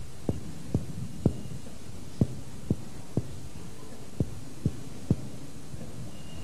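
Chest percussion by hand: a finger strikes a middle finger laid flat on the lower chest wall, giving short taps in three sets of three, about half a second apart. It is done over the lower ribs to map where the lung's resonance gives way to the liver's upper border.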